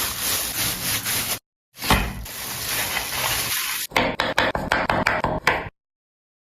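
Food sizzling in a hot pan while it is stirred, cut off briefly about a second and a half in, then a quick run of sharp knocks, about five a second, before the sound stops.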